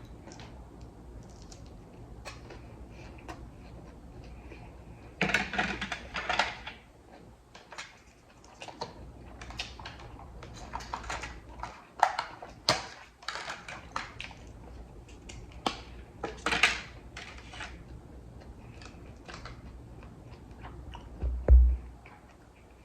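Handling noises: scattered light clicks and taps with short bursts of rustling, and a heavier thump about 21 seconds in.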